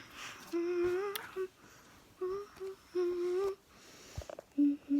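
A person humming a short tune with several steady held notes and short breaks between them, and a sharp click about a second in.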